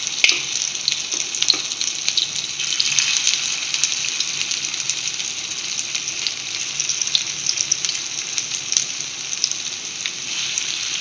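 Potato-and-semolina fingers shallow-frying in hot oil in a frying pan: a steady sizzle with scattered pops and crackles, as more fingers are laid into the oil.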